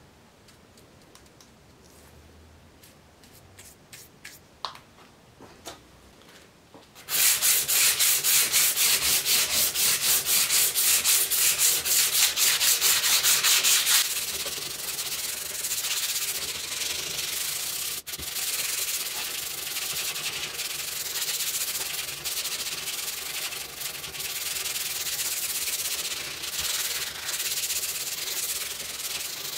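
Hand sanding along a Mauser 98K bayonet's steel scabbard in fast back-and-forth strokes. It starts about a quarter of the way in after a few faint ticks: loud, even strokes at first, then a softer, steadier rubbing from about halfway on.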